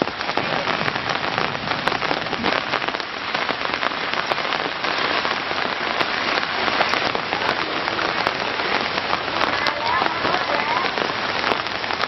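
Heavy rain falling steadily, with many sharp drop hits close by.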